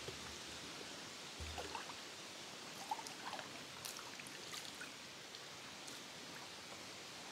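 Faint lapping and small splashes of water as a golden retriever paddles slowly through a pond, with a soft low bump about a second and a half in.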